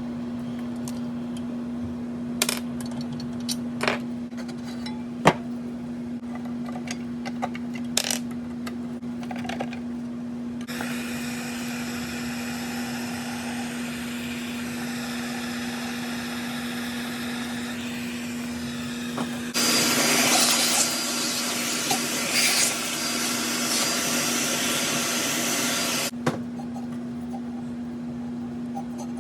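12-inch Harbor Freight disc sander running with a steady motor hum. There are scattered clicks for the first ten seconds. From about eleven seconds in, a rough abrasive rubbing noise joins the hum, and it grows louder for several seconds before cutting off sharply.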